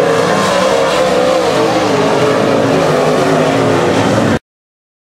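Pack of dirt modified race cars racing on a dirt oval, several engines at once with their pitch rising and falling. The sound cuts off abruptly near the end.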